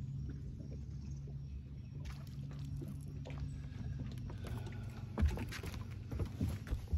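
Spinning reel being cranked as a hooked crappie is reeled in: faint clicking and rattling from the reel and line from about two seconds in, with a sharper knock about five seconds in. A steady low hum runs underneath.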